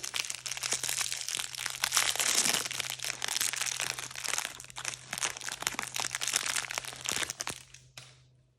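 Plastic or foil packaging being crinkled and crumpled by hand, a dense crackling of many sharp little crackles that stops abruptly near the end.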